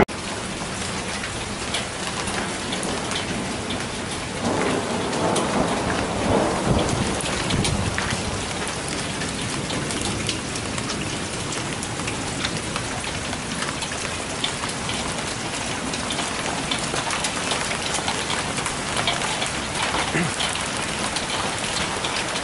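Hail and heavy rain pelting the ground and surrounding surfaces: a steady downpour hiss dotted with many sharp ticks of hailstones striking. The noise swells louder for a few seconds about four seconds in.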